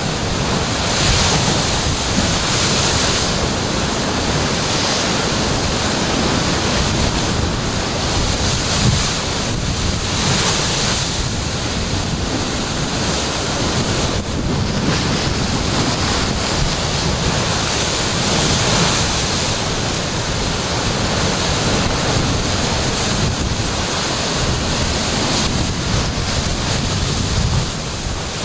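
Ocean surf crashing into a narrow rocky inlet, surging every eight seconds or so and throwing up spray, with sheets of water pouring back off the rock ledges. Wind buffets the microphone throughout.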